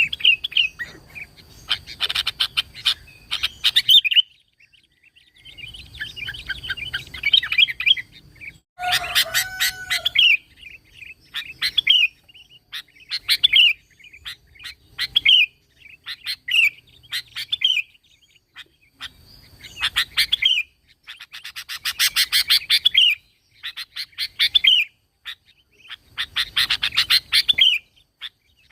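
Sooty-headed bulbul (kutilang) singing: short, bubbly phrases repeated every second or two, some broken into quick chattering runs of notes.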